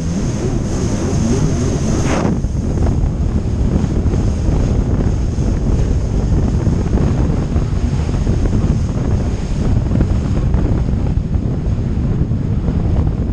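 Wind buffeting the microphone of a moving jet ski, over the steady run of the jet ski and water rushing past. A brief louder burst comes about two seconds in.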